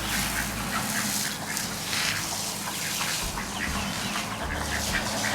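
Domestic ducks quacking repeatedly over a steady rush of water filling their pond.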